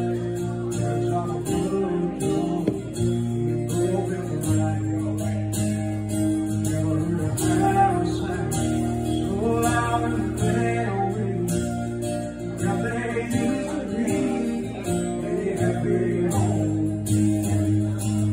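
Solo acoustic guitar strummed in a steady rhythm while a man sings, a live one-man performance.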